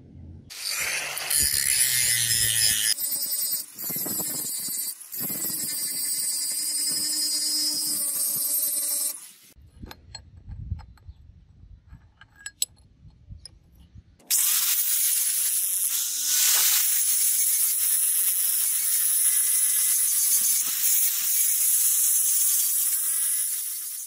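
Angle grinder grinding a steel knife blank, in two long bouts with a few seconds of quieter handling knocks between them.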